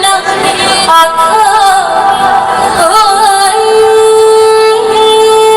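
Loud music with singing, played over a DJ sound system. The melody wavers, then holds one long steady note from about halfway through.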